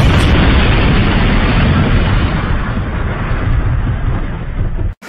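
Channel-intro sound effect: a loud, continuous blast-like rumble, heaviest in the bass, that cuts off abruptly near the end.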